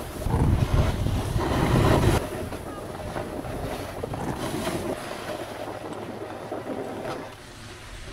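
Wind buffeting the microphone, a low rumble that is loudest in about the first two seconds, then settles into a steadier, softer rush.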